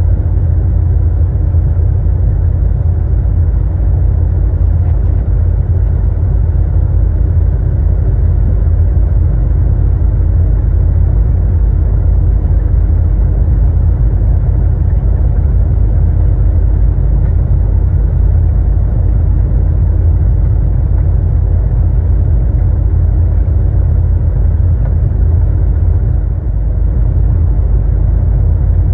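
Steady low rumble of a truck cruising at highway speed, heard inside the cab: engine drone mixed with tyre and road noise.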